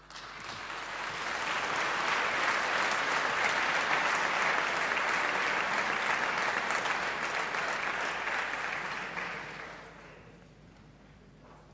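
Audience applauding, building over the first couple of seconds, holding steady, then dying away about nine to ten seconds in.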